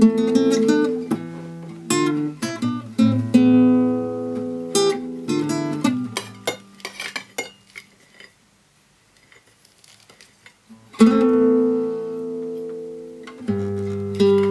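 Acoustic guitar playing sustained chords that ring and fade, falling to near silence for about three seconds in the middle. A loud strummed chord then rings out, followed by another lower chord near the end.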